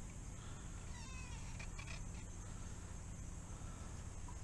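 A faint, brief animal call with a falling pitch, meow-like, about a second in, over a steady high hiss.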